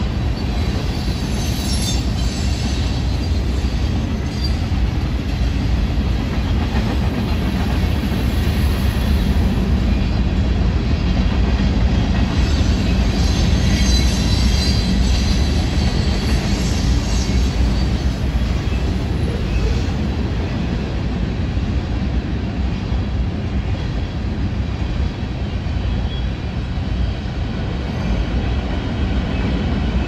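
Freight cars of a manifest train rolling past: a steady rumble of steel wheels on rail, with brief high-pitched wheel squeals a few times.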